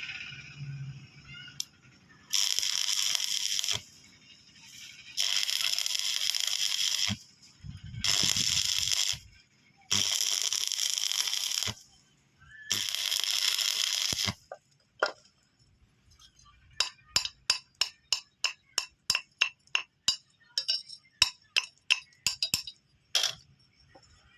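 Five short bursts of electric arc welding, each a hiss of about a second and a half that starts and stops abruptly. These are followed by a quick run of sharp metallic taps and clinks, about three a second.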